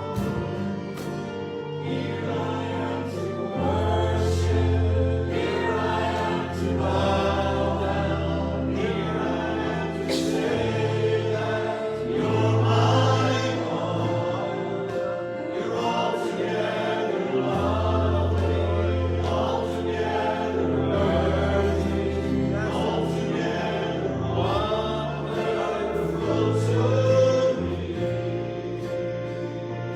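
Church worship music: several voices singing a song together over instrumental accompaniment with long held bass notes.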